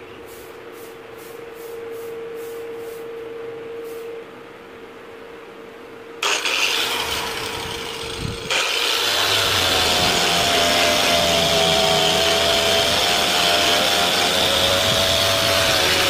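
A faint steady hum, then an angle grinder's motor starts suddenly about six seconds in, eases off, and from about eight and a half seconds runs steadily and loudly with a high whine.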